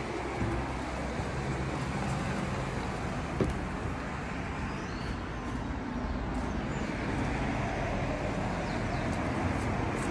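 Steady outdoor street ambience with a hum of road traffic, and a single short knock about three and a half seconds in.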